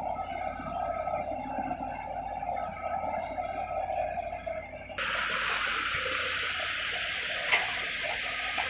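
A steady mechanical drone that changes abruptly about five seconds in to a steady rushing of water, with one brief knock near the end.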